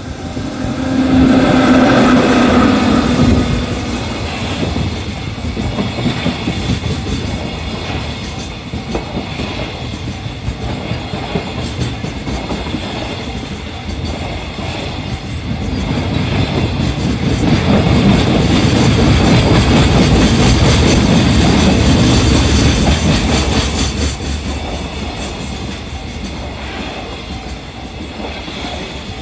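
Freight train wagons behind an EF66 electric locomotive rolling past, a continuous rumble and clatter of wheels on the rails. It swells louder in the first few seconds and again for several seconds past the middle, with a brief pitched tone near the start.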